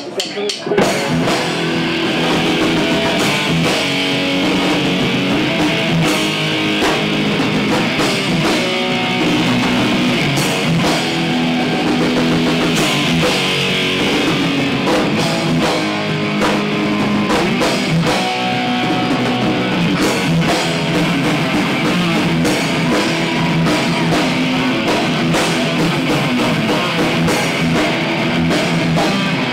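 Live metal band playing: electric guitars, bass and drum kit, kicking in just under a second in and then playing steadily.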